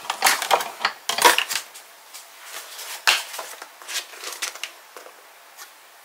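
Handling noise from papercraft tools and paper as a die-cutting setup is gathered: a quick run of clicks and rustles in the first second and a half, then a few single clicks, then quiet room tone.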